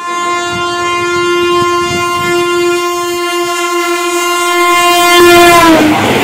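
WAP7 electric locomotive's air horn sounding one long, steady blast as the Rajdhani Express approaches at high speed. Near the end the horn's pitch drops as the locomotive passes, and the loud rush of the passing train takes over.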